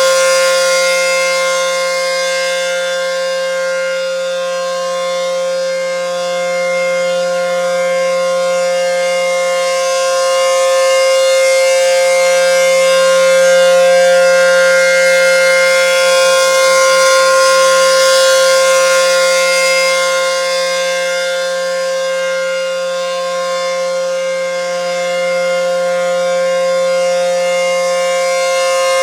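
ACA P-10 outdoor warning siren sounding a steady tone during a test. The pitch holds level while the loudness swells and fades slowly, peaking about every 13 seconds as the rotating siren sweeps toward and away from the listener.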